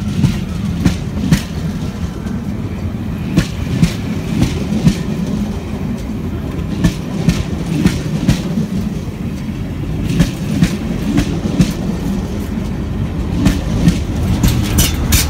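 Passenger coaches of a locomotive-hauled train passing at speed alongside the platform: a steady low rumble of wheels on rail, broken by sharp clacks every second or so as the wheels cross rail joints, often in quick pairs and bunching together near the end.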